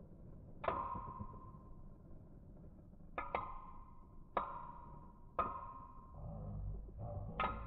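Two Beyblade spinning tops colliding in a plastic stadium: about six sharp metal clinks at irregular intervals, each ringing briefly, from the tops' metal wheels striking each other. Under them runs a low whirring of the tops spinning on the stadium floor, which grows louder about six seconds in.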